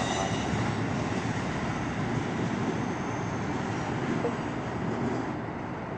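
Amtrak passenger cars rolling slowly past on the rails: a steady rumble and hiss of wheels on track that eases off a little near the end as the train moves away.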